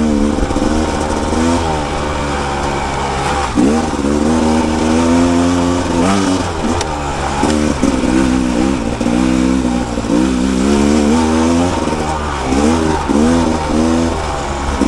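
Two-stroke engine of a Rieju MR 300 Pro dirt bike under way, revving up and down again and again as the throttle is worked, with several quick rises and falls in a row near the end.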